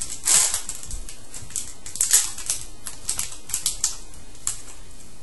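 Foil wrapper of a 2013-14 SPx hockey card pack crinkling and tearing as it is ripped open, a run of sharp crackles that stop near the end.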